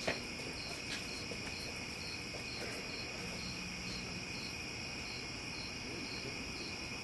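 Crickets chirping steadily: a high trill with a pulse about twice a second.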